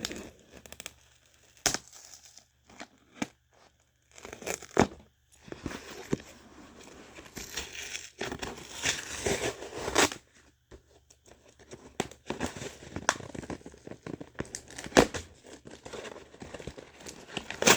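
Cardboard box being cut and torn open with shears: irregular stretches of tearing and crinkling, broken by sharp snips and clicks.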